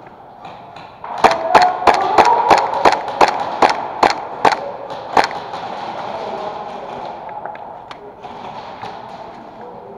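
Airsoft pistol firing a quick string of about a dozen sharp shots, roughly three a second, starting about a second in and stopping after about four seconds.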